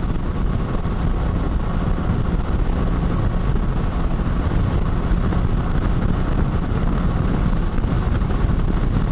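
Kawasaki Versys 650 motorcycle cruising steadily at highway speed: a constant rush of wind and road rumble with engine drone, heard from the rider's position.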